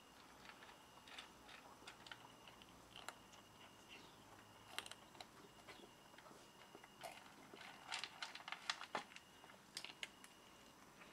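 Two cats crunching dry kibble from a metal tray: faint, scattered crunches and clicks that come thicker in the later part.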